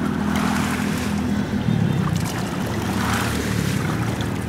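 A motor running steadily with a low drone, its pitch shifting slightly about a second and a half in.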